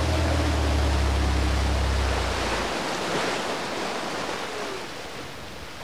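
Rushing, churning water of a boat's wake, with the boat engine's steady low drone that stops about two and a half seconds in; the water rush then gradually dies down.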